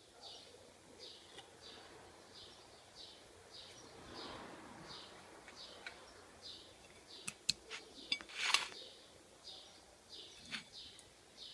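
A small bird repeating a short high chirp about twice a second. Between about seven and nine seconds in, a few sharp clicks and taps on a hard surface are the loudest sounds.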